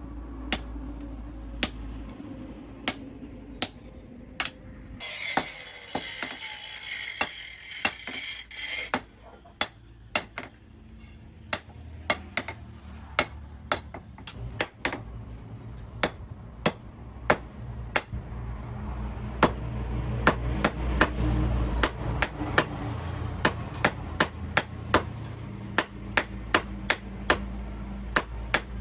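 Hand hammer striking steel on an anvil, a long series of sharp ringing blows, irregular at first and then about two a second in the second half. About five seconds in, a high rasping noise runs for about four seconds, and a steady low hum sits underneath.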